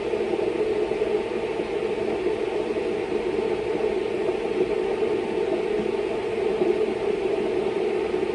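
A steady mechanical whir that holds even, with no knocks or breaks.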